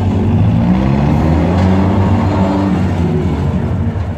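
Monster truck engine revving under load as the truck drives up onto the ramp and stacked cars, its note rising over the first couple of seconds and then easing off.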